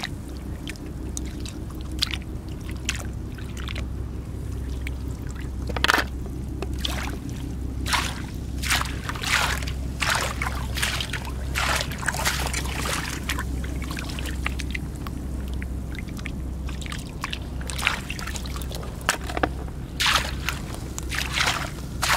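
Rubber boots wading through shallow floodwater among marsh plants, with irregular sloshes and splashes as hands and a rake stir the water, busiest near the end. A steady low rumble runs underneath.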